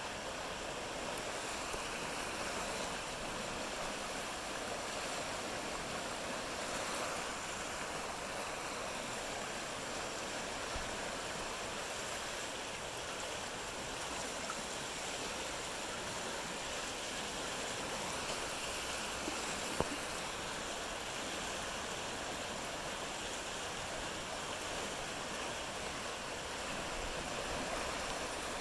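Rain-swollen creek in high flow, fast muddy water rushing and churning over standing waves in a steady wash of noise. One brief knock about twenty seconds in.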